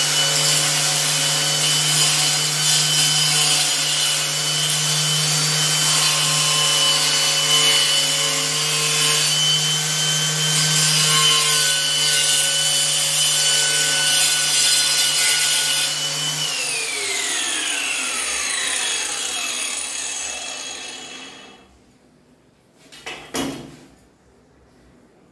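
Angle grinder with a cutting disc slicing through a ceramic tile: the motor runs at full speed with a high whine over a dense grinding noise. About sixteen seconds in it is switched off and the whine falls away over several seconds as the disc spins down, followed by a single short knock near the end.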